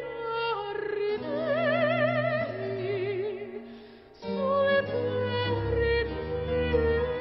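Slow, operatic-style music: a voice singing long held notes with wide vibrato over sustained accompaniment. The music dies down briefly about four seconds in, then swells back.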